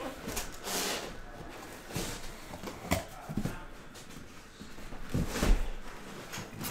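Cardboard shipping case being handled and slid off a stack of card boxes: cardboard scraping and rustling with irregular knocks, and a heavier thump about five seconds in.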